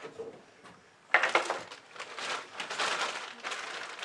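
A sharp click, then crinkling and rustling of plastic packaging as small RC-car parts are handled.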